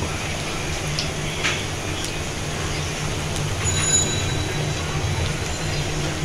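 Piyaju, lentil-and-onion fritters, deep-frying in hot oil: a steady sizzle with a few sharp crackles, over a low steady hum.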